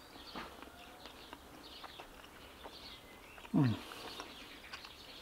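Faint birdsong and quiet eating sounds while a bite of currywurst is tasted, with one short falling "mmm" from the taster about three and a half seconds in.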